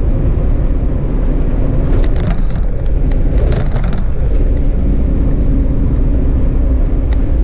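Peterbilt 389 semi truck cruising at highway speed: a steady diesel engine drone under road and tyre rumble. Two brief rushes of hiss come through about two and three and a half seconds in.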